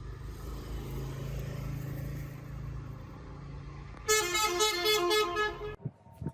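Low vehicle rumble, then a horn tooting in about six quick blasts that alternate between two pitches and cut off suddenly, followed by a couple of knocks.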